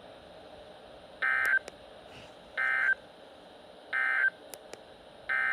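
Weather radio sending short bursts of buzzy digital data tones: three brief bursts about a second and a half apart, then a longer one starting near the end. It is the coded SAME header that opens a new alert, here a severe thunderstorm warning.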